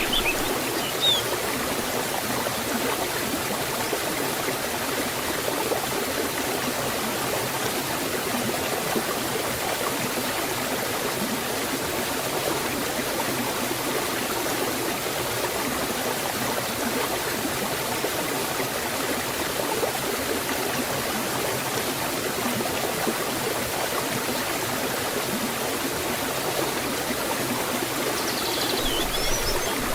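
Waterfall and stream water flowing steadily, an even rushing that does not change.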